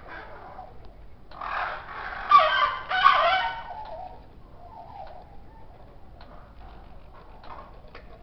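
Caged cat meowing: a run of drawn-out, pitched meows starting a little over a second in and lasting about two seconds, followed by faint quiet sounds.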